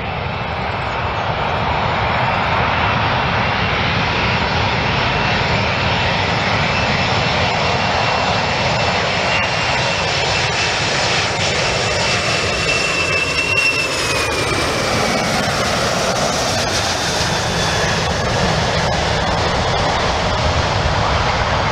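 Boeing 747-400's four turbofan engines on final approach, a steady loud jet roar with a high whine that drops in pitch a little past the middle as the airliner passes.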